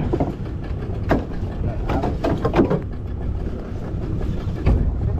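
Steady low rumble of a small fishing boat's motor running, with a sharp click about a second in.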